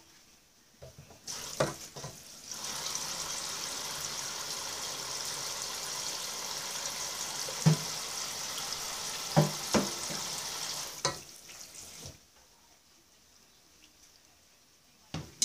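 Pasta being drained: the pot's cooking water pours out in a steady rush for about nine seconds, with a few knocks of the pot against the sink, and stops near the end.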